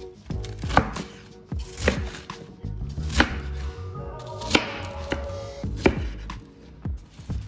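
Kitchen knife slicing through napa cabbage and striking a plastic cutting board: a sharp knock about every second, with lighter cuts in between.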